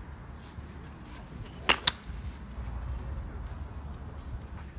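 Two sharp clicks a fraction of a second apart, about two seconds in, from golf ball and club on a driving-range tee, over a low steady rumble.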